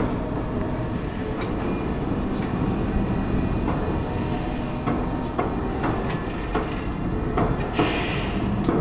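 Chinese firecrackers going off in a dense, continuous crackle: a steady rumble of overlapping bangs with sharper single pops scattered irregularly through it. A brief hiss comes about 8 s in, then a sharp crack near the end.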